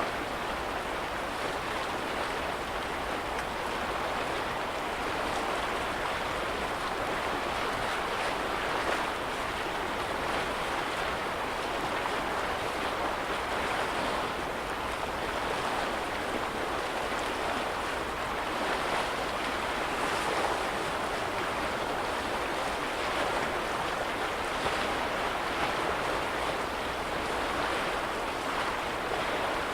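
Lake waves washing steadily at the shore, an even rushing of water with no breaks.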